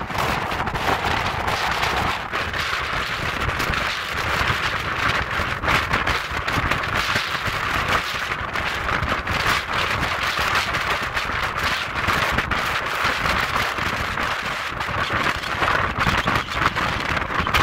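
Wind buffeting a phone microphone on the open deck of a moving ferry, over a steady rush of water along the hull. The wind makes a constant crackling noise.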